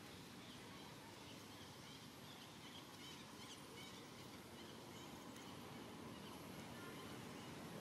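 Near-silent outdoor ambience: a faint steady hiss with a few faint, short high-pitched chirping calls in the first half.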